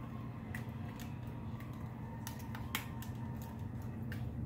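Scattered sharp plastic clicks and taps as a Bluetooth karaoke microphone and its phone holder are handled and adjusted, over a steady low hum.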